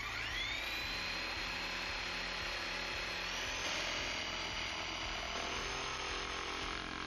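Electric power tool spinning up with a rising whine and then running steadily, its pitch stepping up slightly about three seconds in, as it rounds off the back end of a sled runner.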